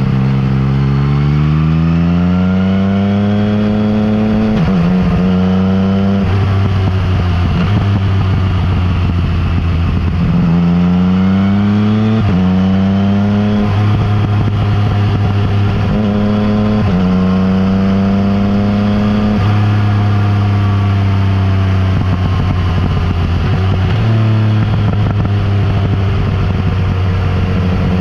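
Yamaha MT-09 Tracer's inline three-cylinder engine through an Akrapovic exhaust, ridden on the road. Its pitch climbs under throttle and falls when the throttle is eased, with sudden drops at several gear changes.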